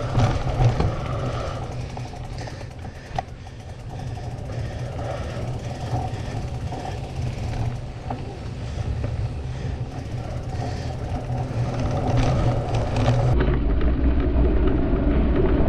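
Wind rush and rattle from a mountain bike riding fast down a dirt forest trail, heard on a bike- or helmet-mounted camera's microphone. The low rumble grows louder in the last few seconds as the pace picks up.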